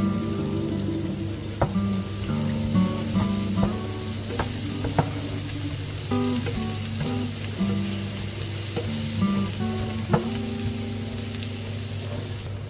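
Sliced onions and minced garlic sizzling in oil in a frying pan, stirred with a wooden spatula that knocks against the pan a few times, with soft background music.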